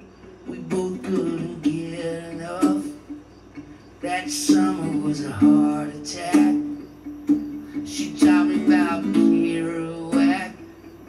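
Man singing a song while strumming a small-bodied acoustic string instrument.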